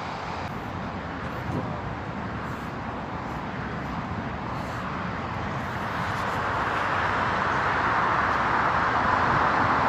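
Road traffic noise: a steady rushing hiss of vehicles on the road, growing louder about halfway through.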